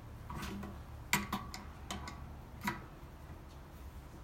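Hand tools and metal parts being handled while working on pressure washer fittings: about five scattered sharp clicks and knocks, the loudest about a second in, over a steady low hum.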